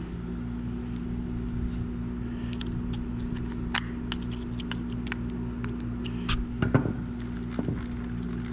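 Small clicks and taps of metal reel parts being handled and fitted on a vintage Johnson 100A spincast reel, with a louder knock or two about two-thirds of the way through, over a steady low hum.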